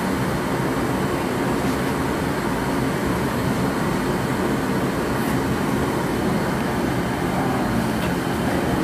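Gas-fired glassblowing glory hole and furnace burners running, a steady, even rushing noise with no change in level.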